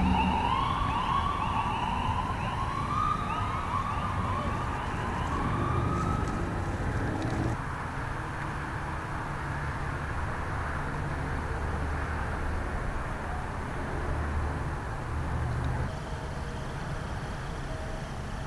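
An emergency vehicle's siren in a fast yelp: quick rising sweeps repeat over and over, then stop about seven seconds in. Under it and after it there is a steady low rumble of idling vehicle engines.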